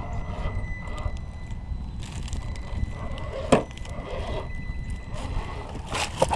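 Axial SCX10 II RC rock crawler climbing over rocks: a low rumble with a faint steady high whine from its drivetrain, a sharp knock about three and a half seconds in, and a few clicks near the end as the tyres and chassis strike rock.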